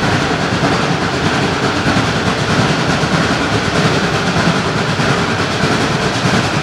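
A steam excursion train hauled by a geared Shay locomotive, running on the rails. It makes a loud, steady, dense running noise with no clear break.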